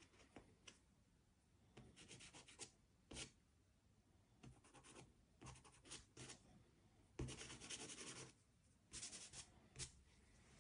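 Faint scratchy strokes of a soft pastel stick and fingertips rubbing on paper, in short irregular bursts, with the longest run about seven seconds in.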